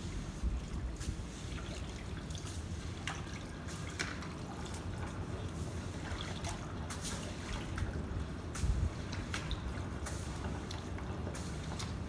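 Water dripping and trickling: scattered small drips over a steady low rumble.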